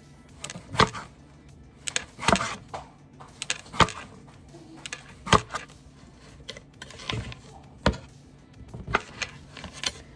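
Kitchen knife slicing through the thick stem of a king oyster mushroom, each cut ending in a sharp knock of the blade on a wooden cutting board. About nine knocks come at an uneven pace, roughly one a second.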